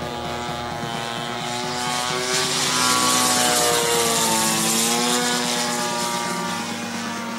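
DLE 60cc twin-cylinder petrol engine of a large RC Extra 330 aerobatic plane, swinging a 23x8 propeller, heard in flight overhead. It grows louder to a peak about three seconds in, then fades as its pitch slides down.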